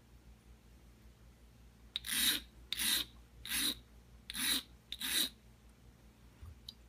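Wet alundum stone rubbed along the edge of an enameled copper piece: five short scraping strokes, about 0.7 s apart, starting about two seconds in. The strokes are grinding off fire scale and stray enamel from the edge.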